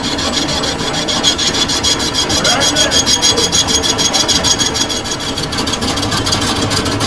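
Metal lathe machining a sugarcane juicer roller bush: a steady scraping cut with rapid, even pulses over a high ring.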